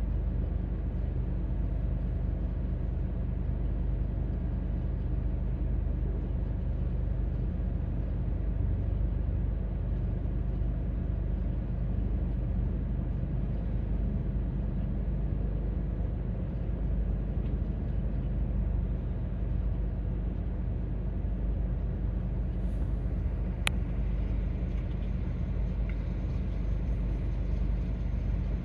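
Steady low rumble of a double-stack container freight train rolling past a level crossing, heard from inside a waiting car. A single sharp click sounds near the end.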